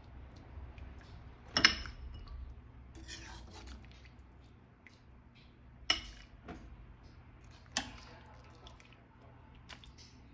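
Kitchen utensils clinking against pots and dishes in a small room: a few sharp clinks, the loudest about one and a half seconds in and others near six and eight seconds, over a low steady hum.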